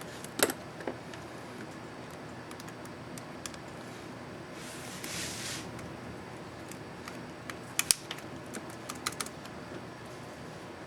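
Sharp plastic clicks from the Enter key of an ASUS X551C laptop keyboard as the keycap is fitted and pressed: a loud click about half a second in, a scraping rustle for about a second midway, then a quick run of clicks, with a loud double click, near the end.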